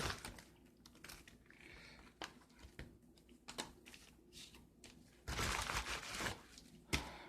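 Coin packaging being handled: scattered light clicks and taps, with a rustle of crinkling plastic about five seconds in.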